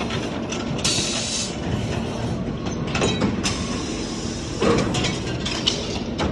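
CNC pipe clamp forming machine running, punching, cutting and bending flat bar: a steady mechanical clatter with repeated knocks and a few short hisses.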